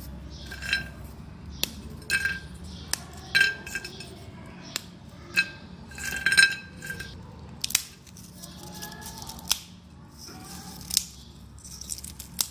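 Crisp fried papri (flour crackers) snapping and crumbling between fingers over a ceramic plate: irregular sharp cracks and short crackles, about one a second, the loudest about halfway through. The dry, brittle snap shows the papri is fried fully crisp.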